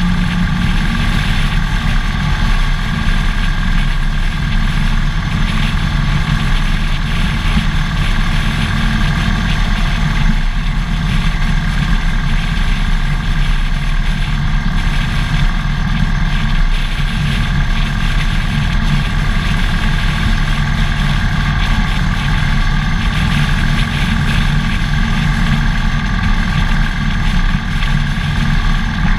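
Harley-Davidson Dyna Fat Bob's V-twin engine running steadily under way, with wind and road noise over the bike-mounted camera.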